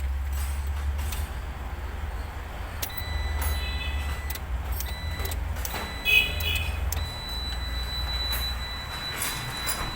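Isuzu 4HL1 four-cylinder diesel engine turning over in a test after the truck was flooded, a steady low throbbing drone. A short electronic beep sounds about six seconds in.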